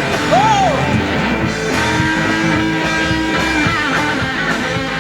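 Worship song played by a band with guitar, between sung lines, with a sliding guitar or vocal phrase about half a second in.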